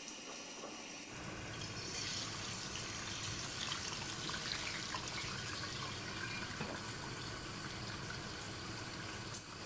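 Dried split milkfish frying in hot oil in a wok: a steady sizzle with small crackles and pops, which starts up about a second in.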